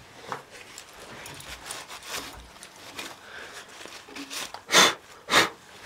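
Shop rag rubbed over the oiled cast iron casting around the tap to wipe away cutting oil: soft rustling and scraping, then two loud swishes about half a second apart near the end.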